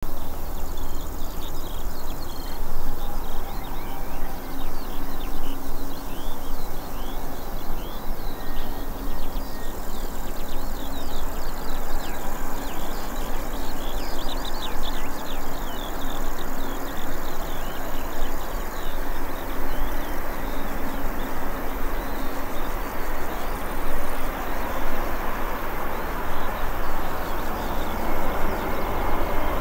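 Outdoor ambience with a steady low rumble and dense high chirping from small animals. Over the last few seconds the noise of an approaching Airbus A350 jet begins to rise.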